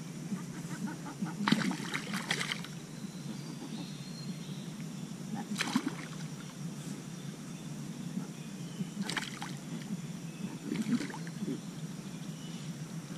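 Short splashes and knocks of water at a kayak as a hooked sea catfish is brought in alongside. There is a cluster of them about two seconds in, then single ones every few seconds, over a steady low water hiss.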